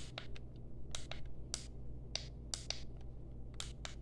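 Quick, irregular small plastic clicks, a dozen or more, from the buttons of a cheap infrared non-contact thermometer being pressed repeatedly to step through its settings and turn its beep off. A low steady hum runs underneath.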